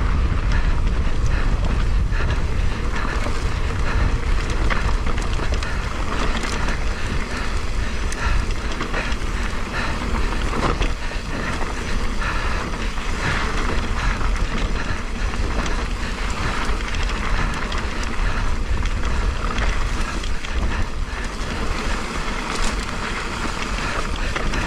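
A mountain bike rolling fast down a dirt singletrack: wind buffeting the action-camera mic in a steady low rumble over the hiss of knobby tyres on dirt, with scattered small clicks and rattles from the bike over the rough trail.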